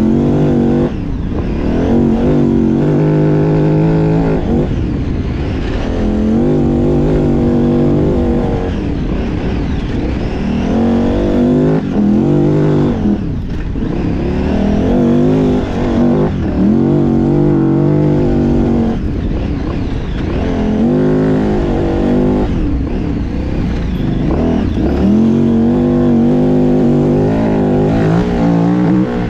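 KTM 990's V-twin engine heard from on board, pulling up in revs and dropping back again every few seconds as the throttle is opened and closed on a dirt trail.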